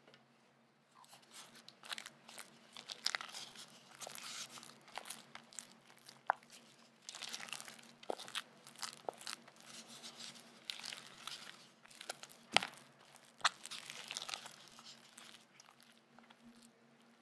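Silicone spatula stirring and scraping a thick cream cheese and butter mixture round a glass bowl: irregular wet, sticky strokes starting about a second in, with a few sharp clicks of the spatula against the glass.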